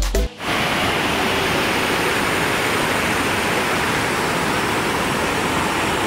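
River water rushing over boulders in white-water rapids: a steady, loud rush that starts about half a second in, just as music cuts off.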